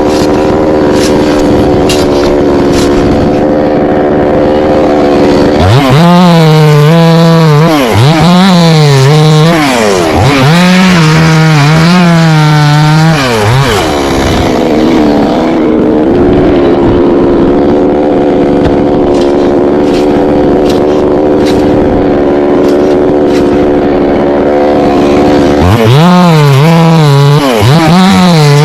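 Chainsaw cutting coconut trunk. It runs steadily, then is revved high, the pitch dipping and recovering repeatedly under load, from about six to fourteen seconds in. It runs steadily again and revs up once more near the end.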